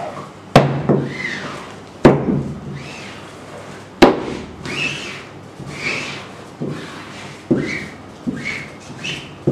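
Rubber squeegee scraping across a screen-printing mesh in a wooden frame, forcing ink through onto fabric. Three sharp knocks come in the first four seconds, followed by a string of short scraping strokes, about one a second.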